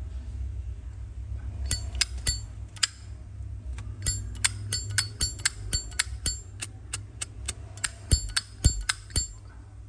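Zippo lighter's hinged metal lid flicked open and snapped shut over and over: a string of sharp metallic clinks with a short ring, starting about two seconds in and stopping near the end, over a steady low hum.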